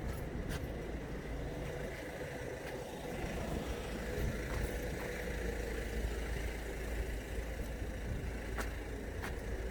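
Police car's engine idling steadily, with a few faint clicks.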